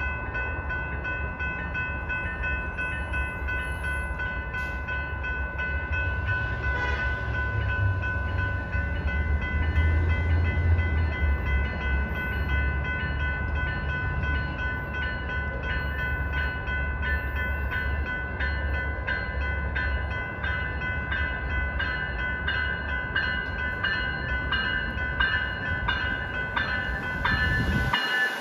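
A train passing close by: a continuous low rumble under a steady high-pitched ringing, with sharp wheel clacks that come thicker and more regular near the end.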